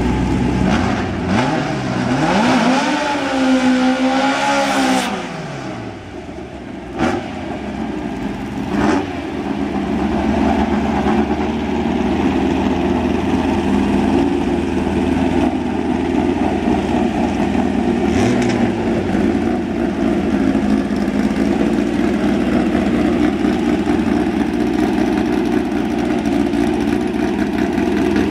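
VW drag-race car engines: an engine revved hard several times, its pitch rising and falling, then two sharp pops about two seconds apart, followed by engines idling steadily with a brief blip of the throttle midway.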